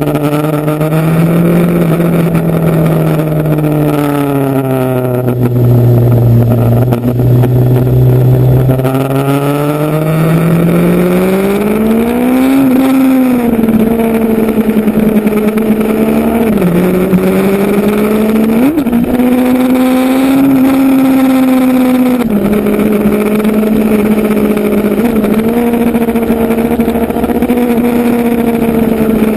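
Motorcycle engine running under way, its pitch falling and holding low for a few seconds, then climbing about ten seconds in. A brief dip and a quick short rise in revs follow, and the engine then holds a steady pitch.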